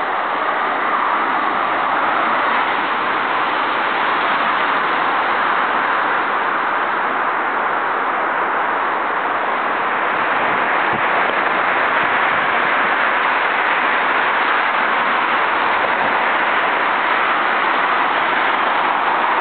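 Steady noise of road traffic, an even wash of sound with no single vehicle standing out.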